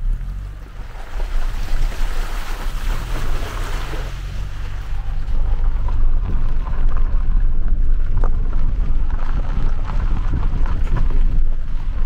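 A vehicle's engine running as it drives off, a low rumble that starts abruptly and grows rougher and louder, with wind noise on the microphone.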